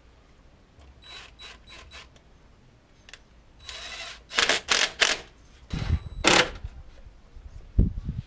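Hands working car parts: a few light clicks, then a run of loud plastic rustling and scraping, then several dull thumps as pieces are set back into place.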